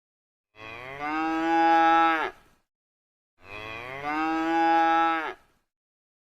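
A cow mooing twice: two identical long moos, each swelling from a quieter start into a louder held call, about a second apart.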